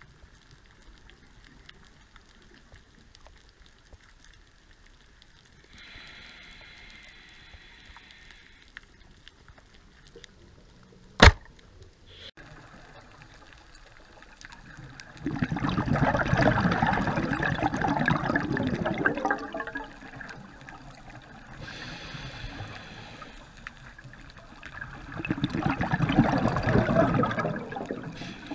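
Scuba diver breathing through a regulator underwater: a soft hiss on each inhale, then a loud rush of exhaled bubbles lasting several seconds, two breaths in all. A single sharp click comes a few seconds before the first exhale.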